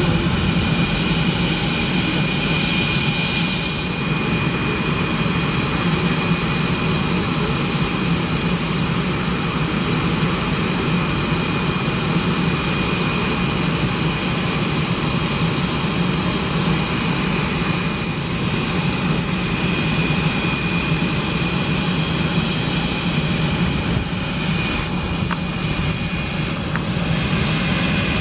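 de Havilland Vampire's Goblin turbojet running at takeoff power: steady rushing jet noise with a steady high whine, growing a little louder near the end as the jet lifts off.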